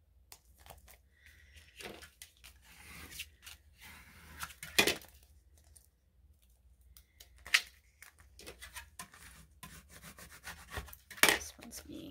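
Fingers rubbing and flexing a sheet of vinyl decal on transfer tape: papery rustling with three sharp crackles, about five, seven and a half and eleven seconds in. The back of the sheet is being rubbed so that stubborn decal pieces come up off the backing.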